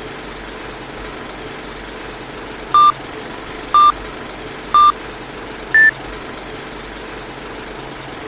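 Film-countdown-leader sound effect: the steady rattling whirr of an old film projector, with short countdown beeps a second apart, three at one pitch and then a fourth, higher beep.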